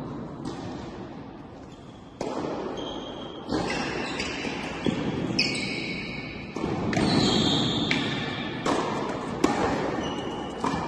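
Tennis rally on an indoor court: racket strikes on the ball and ball bounces, a sharp knock every second or so, each ringing on in the reverberant hall. Short high squeaks of tennis shoes on the court come in between.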